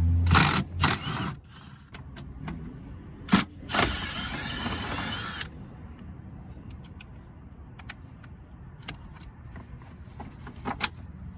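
A power driver running a T50 Torx bit on the seat-belt anchor bolts stops about half a second in. It is followed by metal clinks and knocks, a couple of seconds of rustling scraping, and then light scattered clicks of tools and parts being handled.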